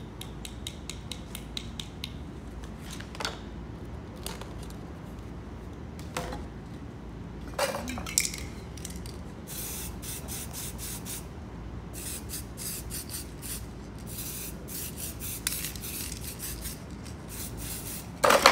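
Aerosol spray-paint cans hissing in many short, quick spurts, in clusters, as paint is sprayed onto a canvas. A few metallic clanks of cans being knocked or set down come between them, the loudest near the end.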